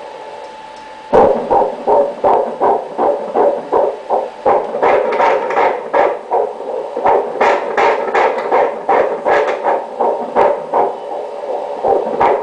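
Fetal heartbeat played through an ultrasound machine's Doppler speaker: a steady hum, then about a second in a fast, regular pulsing at about two and a half beats a second, a heart beating normally.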